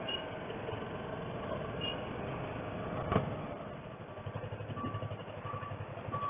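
A Yamaha YZF R3's 321 cc parallel-twin engine running at low revs as the bike rolls slowly, its low hum turning into an even pulsing in the second half. There is one sharp click about three seconds in and a few short high beeps near the end.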